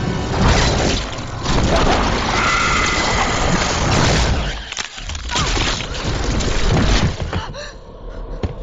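Loud film sound effects: a dense rumbling, crashing roar with booms, dropping away near the end.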